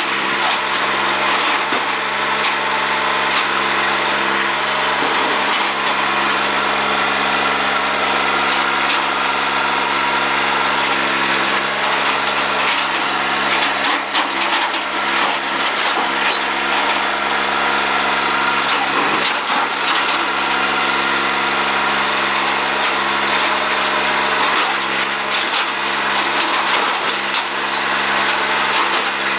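Big John Deere tractor's engine running steadily, with a few faint brief knocks about halfway through.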